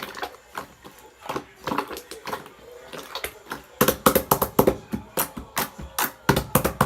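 Slime being squeezed and poked by hand, giving a run of sticky clicks and pops that become quicker and louder about four seconds in.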